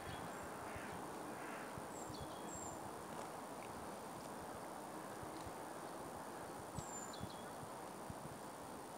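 Steady outdoor background noise with a few faint, short high-pitched bird chirps, a couple about two seconds in and again around seven seconds in.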